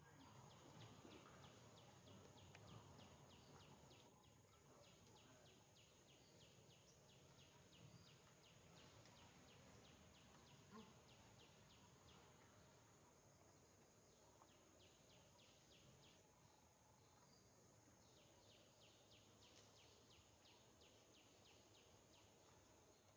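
Near silence: faint outdoor background with a thin, steady high insect drone and rapid, even insect ticking that pauses now and then.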